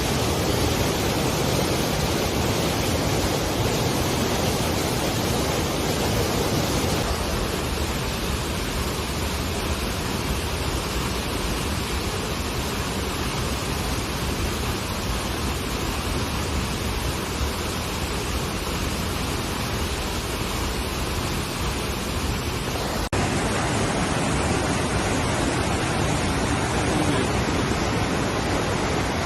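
Steady rush of a waterfall, an even wash of falling water that changes slightly in tone about three-quarters of the way through.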